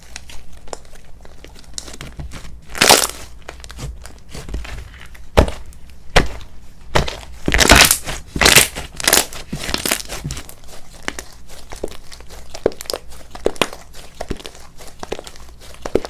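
Slime being squished and pressed by hand, giving a steady run of crackling clicks and pops. There are louder pops about three seconds in and a cluster of them between about six and ten seconds.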